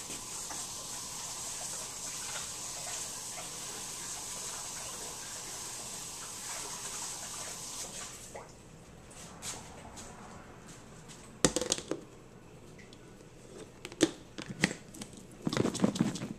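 Kitchen tap running as hands are rinsed under it, stopping about eight seconds in. After that come a few sharp knocks, and a plastic bowl lid is handled with clattering near the end.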